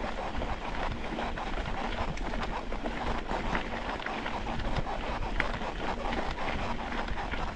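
Mountain bike riding over a rough dirt trail: tyres crackling over loose stones and the bike rattling in irregular small clicks, with wind buffeting the microphone.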